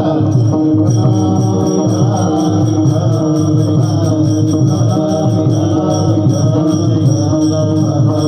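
Devotional kirtan chanting, a sung refrain over a steady held drone note.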